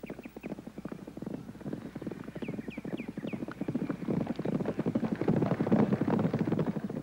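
Several horses galloping on dry ground, a rapid clatter of hoofbeats growing louder as they draw near and loudest near the end.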